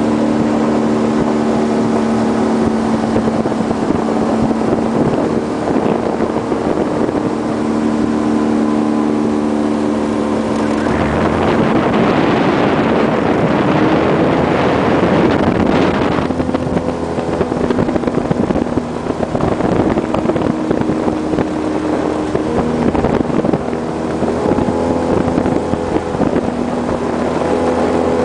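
Small boat's motor running steadily while underway, its engine note stepping to a different pitch a few times. Wind on the microphone and rushing water get louder for a few seconds about a third of the way through.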